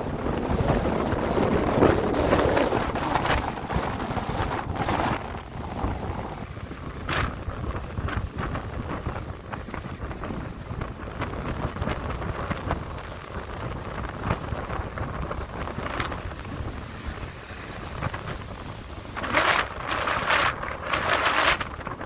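Strong wind buffeting the microphone over waves breaking and washing against a rocky shore. There are louder gusts about two seconds in and again near the end.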